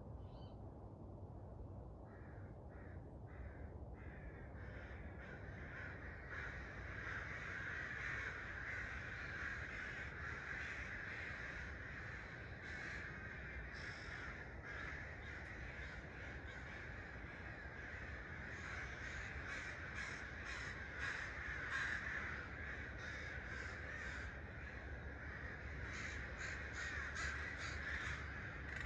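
Birds calling at daybreak, with harsh cawing calls in quick runs of several, starting about two seconds in, over a low steady rumble.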